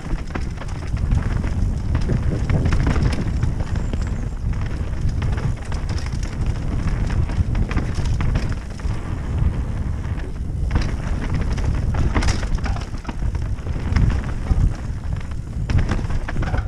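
Mountain bike descending a rough dirt trail: wind buffeting the on-board camera's microphone and tyres rumbling over the ground, with frequent knocks and clatter from the bike over bumps.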